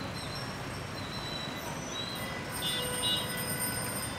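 Busy city street traffic: a steady rumble of engines and tyres, with thin high-pitched squeals over it, strongest around three seconds in.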